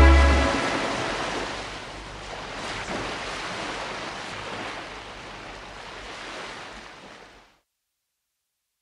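Small waves washing onto a beach: a soft surf hiss that swells gently twice and fades, ending abruptly about seven and a half seconds in. The song's last held chord dies away in the first half second.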